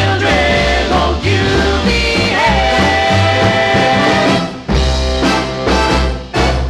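Swing band music for a Lindy Hop routine, with a long held note through the middle and two brief breaks near the end.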